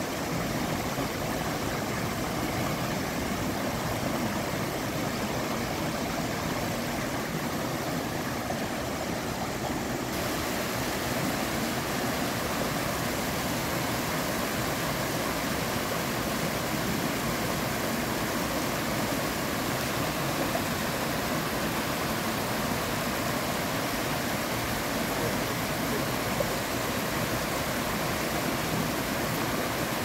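Stream water rushing steadily over rocks and small rapids.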